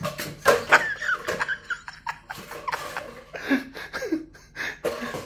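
A person chuckling and laughing, over scattered light knocks and clatters of an empty cardboard paper towel tube being batted and pounced on across a vinyl floor by kittens.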